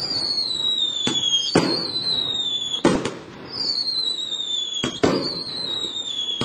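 Multi-shot fireworks cake (GC8059) firing shot after shot. Each shot gives a high whistle that falls slowly in pitch and ends in a sharp bang, about every second and a half.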